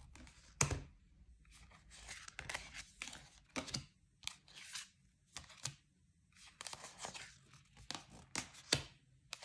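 Stiff cardboard oracle cards being handled and sorted by hand: an irregular run of short slides, flicks and light taps of card against card and on the table.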